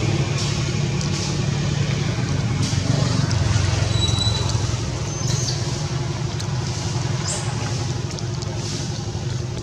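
Steady low rumble of a running engine, even in level throughout, with a brief high thin whistle about four seconds in.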